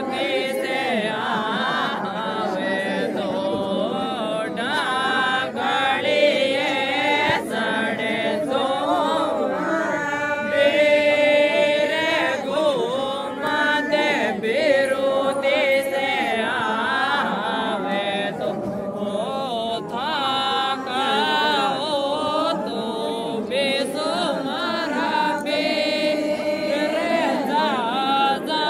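A group of women and a man singing a Rajasthani mayra (wedding) folk song together, many voices overlapping in a chanting melody.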